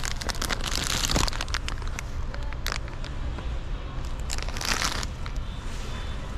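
Foil candy bag of fun-size 3 Musketeers bars crinkling as it is handled, in two bursts: about a second in and again near five seconds, over a steady low hum.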